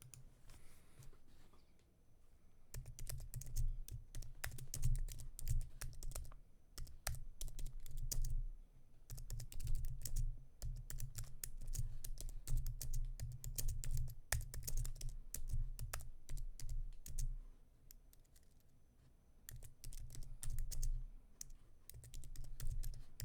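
Typing on a computer keyboard: fast runs of key clicks, with a short pause about three quarters of the way in before the typing picks up again.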